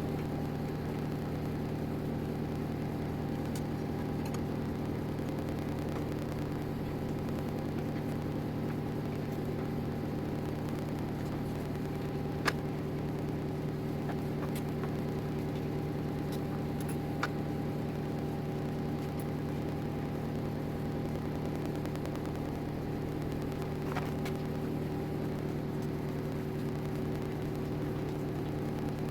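CNC router running steadily with an even, pitched motor hum, with a few faint sharp clicks about halfway through and near the end.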